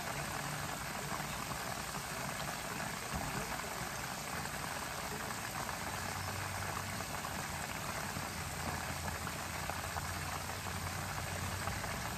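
Chicken frying in hot vegetable shortening in an electric skillet: a steady, even sizzle.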